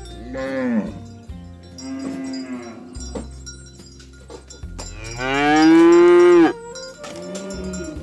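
Cattle mooing three times: a short call at the start, a lower one about two seconds in, and a long, loud moo about five seconds in. Cowbells clink under the calls.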